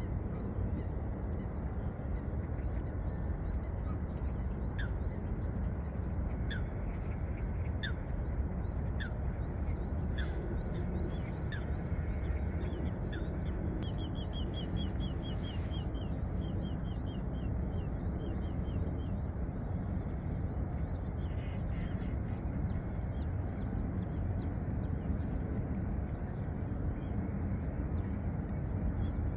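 Wild birds calling over a steady low background rumble: a series of short falling calls about once a second through the first half, then a quick trill of rapid notes around the middle, with scattered chirps.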